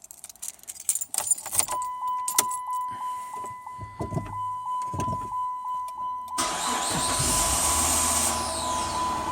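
Car keys rattle and click, then a steady pulsing warning chime sounds. About six seconds in, the engine starts suddenly and runs with a loud hiss and a low rumble. This is a push-button-start car that keeps dying soon after it starts.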